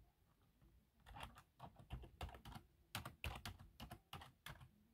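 Faint, irregular clicks of typing on a keyboard, several a second, starting about a second in.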